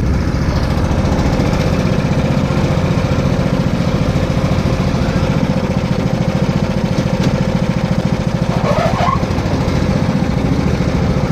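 Small off-road vehicle's engine running steadily as it drives over grass, with a fast, even beat and a steady hum.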